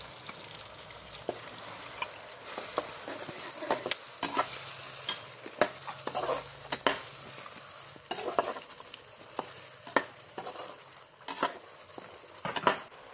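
Red curry paste and tomatoes sizzling in hot oil in a non-stick wok while a spatula stirs and scrapes the pan, giving irregular scrapes and taps over a steady sizzle. The paste is being fried until the oil separates from it.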